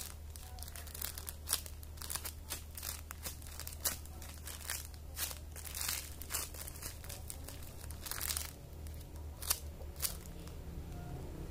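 Plastic crinkling and rustling in irregular crackles as a foam squishy toy is handled and squeezed, over a low steady hum.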